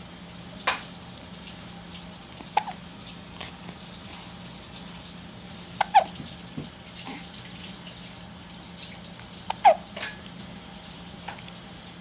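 Hiccups: about four short, sudden hics at uneven gaps of two to four seconds over a steady hiss, the loudest two about halfway through and near the end, each with a brief pitched catch.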